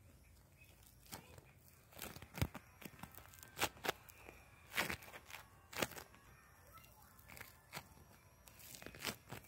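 Floam slime being squeezed and worked by hand, its foam beads giving a series of irregular sharp crackles and pops.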